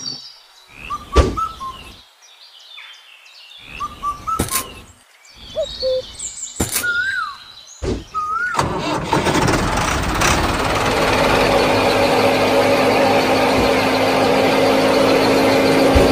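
Short chirping calls and a few sharp clicks, then about eight and a half seconds in a small motor starts and runs with a steady whir: the drive of the miniature wheat thresher.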